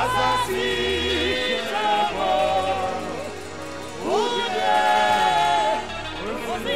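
Live gospel worship music: a woman singing into a microphone over a band with keyboards, electric guitar and a steady bass. Her voice slides up into long held notes twice, near the start and about four seconds in.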